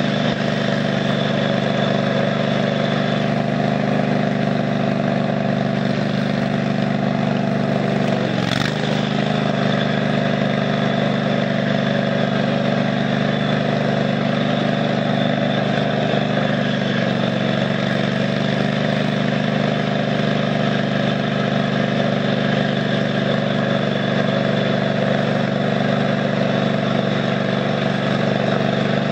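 Craftsman DYT 4000 riding mower's engine running steadily while the tractor drives along, with a brief sag in the engine note and a knock about eight and a half seconds in.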